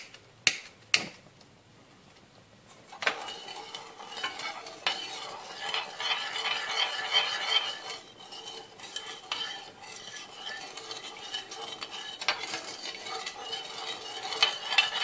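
A gas burner's igniter clicks three times in the first second. From about three seconds in, a metal spoon stirs sugar and water in a saucepan, scraping and knocking steadily against the pan as the sugar is dissolved into syrup.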